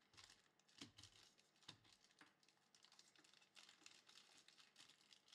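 Faint crinkling and light clicks of trading cards and their plastic packaging being handled: a scatter of small, irregular clicks and rustles.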